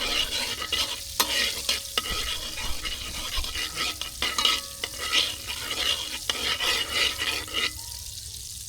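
Butter and oil sizzling in a hot pot while a spoon stirs and scrapes it, with many small clicks and scrapes; about eight seconds in the stirring stops and a softer frying hiss carries on.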